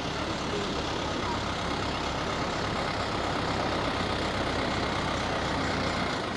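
Heavy diesel engine of construction machinery running steadily with a low rumble.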